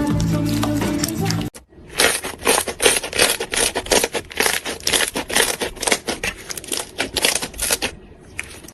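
Background music cuts off about a second and a half in. Then slime is worked in the hands, giving a fast, uneven run of sticky clicks and crackles that fades near the end.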